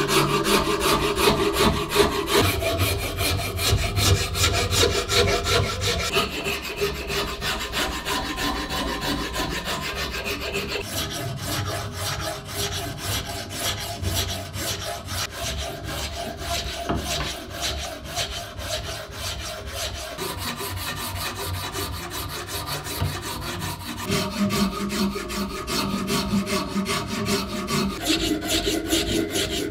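Continuous scratchy rubbing of an abrasive working on wood as a part is shaped, with a steady hum under it at the start and again near the end.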